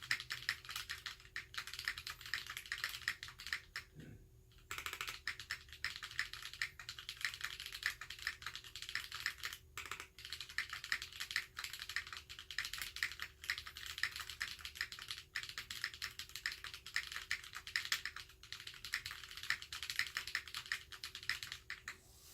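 Fjell custom mechanical keyboard with Holy Panda tactile switches being typed on at a steady fast pace, a dense run of keystroke clicks with short pauses about four and ten seconds in.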